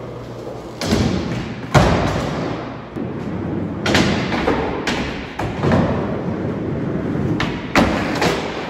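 Skateboard rolling on a smooth concrete skatepark floor, its wheels giving a steady rough rumble, broken by several sharp knocks and thuds as the board pops, lands and strikes ramp and ledge edges.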